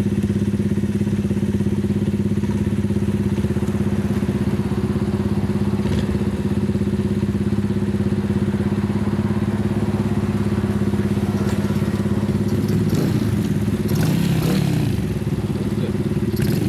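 Single-cylinder four-stroke engine of a custom Honda Monkey minibike idling steadily, its exhaust pulsing evenly.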